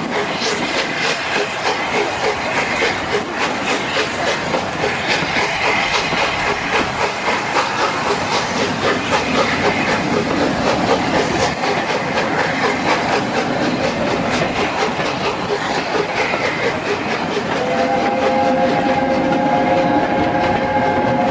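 Train of coaches hauled by LNER A4 Pacific steam locomotive No.60009 rolling past on departure. The wheels clatter steadily over the rail joints, with a hiss of steam. Near the end a held chord of several whistle notes begins: the A4's chime whistle.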